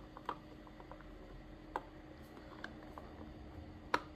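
Faint clicks and taps of fingers handling a diecast metal robot figure's head, a few scattered ones, the sharpest just before the end.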